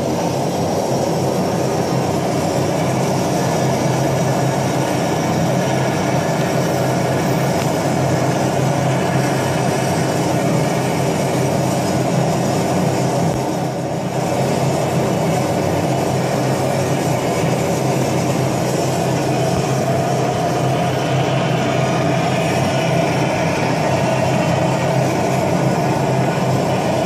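Gas torch flame burning with a steady rushing noise as it melts silver in the crucible of a centrifugal casting machine, dipping briefly about halfway through.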